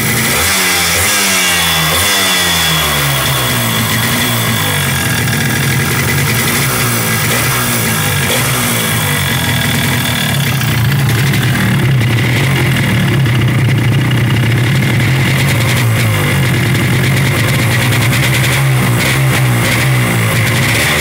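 Small single-cylinder two-stroke motorcycle engine running through its exhaust, revved up and down over and over in the first half. It then holds a steady, higher-revving note, with a few more blips of the throttle near the end.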